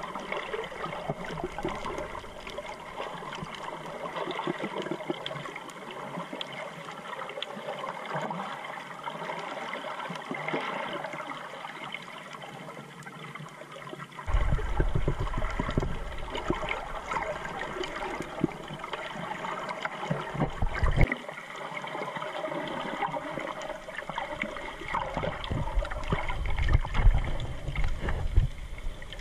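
Muffled underwater water sound picked up by a GoPro in its housing while snorkeling: water gurgling and washing around the case over a fine, constant crackle. Heavier low rumbling comes in bursts from about halfway through and again near the end.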